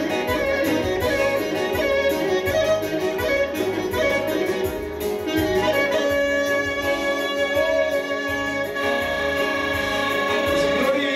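Live Albanian folk dance music: a clarinet plays an ornamented melody over keyboard accompaniment with a steady beat.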